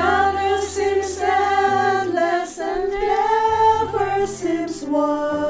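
Several voices singing a slow worship song together, holding long notes over sustained accompaniment chords.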